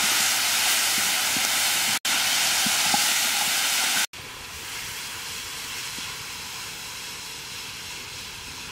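Chopped meat and lemongrass sizzling loudly as they are stir-fried in a large wok over a wood fire. About four seconds in, the sound cuts to a quieter, steady sizzle.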